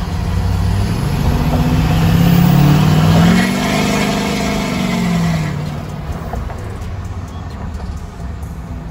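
Straight-piped 6.6 L LML Duramax turbo-diesel V8 accelerating on the road, heard from inside the cab. The exhaust note rises in pitch for a couple of seconds, then falls as the throttle eases off and settles into a steady cruising drone.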